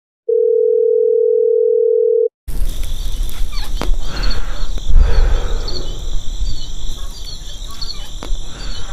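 A steady electronic beep tone lasting about two seconds, then a noisy stretch with a low rumble, a steady high-pitched whine and scattered short chirps.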